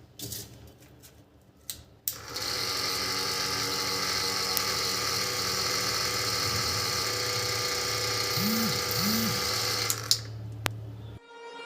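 Small electric motor of a homemade cardboard air conditioner running steadily, switched on suddenly about two seconds in and stopping about two seconds before the end.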